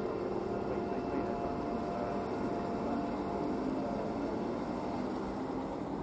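Electric multiple unit at the platform giving a steady hum, with a faint motor tone coming in near the end as it begins to move off.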